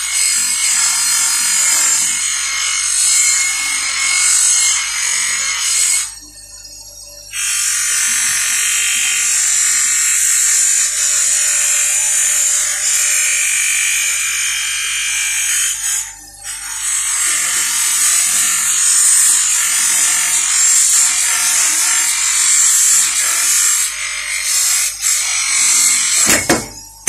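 Small brass oil can held against a spinning bench grinder wheel, giving a steady, high hiss of metal being abraded. The hiss breaks off for about a second around six seconds in, and again briefly near sixteen seconds, as the piece comes off the wheel.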